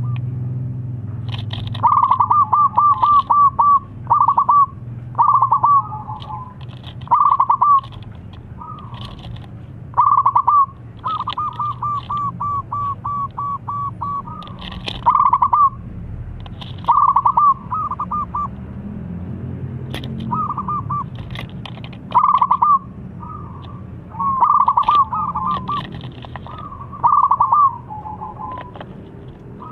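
Zebra dove (perkutut) in full song: repeated phrases of rapid, staccato cooing notes, each a second or two long with short pauses between, the calling song used to draw a rival dove into answering.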